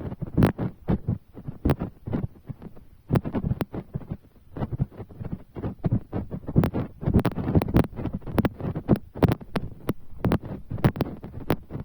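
Large raindrops pattering irregularly close to the microphone, a dense run of dull thuds and sharper taps.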